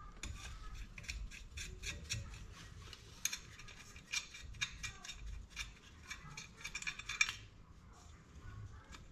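Faint small metallic clicks and scrapes in quick irregular succession, stopping about seven seconds in, as a bolt on the wastegate assembly of a Ford 3.5L EcoBoost turbocharger is worked loose by hand and the parts shift against each other.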